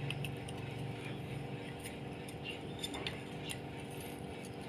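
A few light, scattered metallic clicks as a motorcycle front brake caliper and an old brake pad are handled, over a steady low hum in the background.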